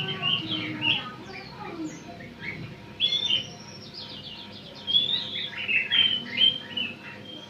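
Young Eurasian tree sparrow chirping: many short, high chirps, with quick runs of rapid notes about three seconds in and again around five to six seconds.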